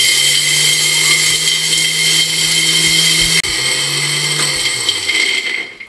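Electric mixer grinder (mixie) with a steel jar running at full speed, grinding roasted flax seeds and makhana to a dry powder. It gives a steady high whine over a low motor hum, steps slightly lower about three and a half seconds in, and winds down near the end.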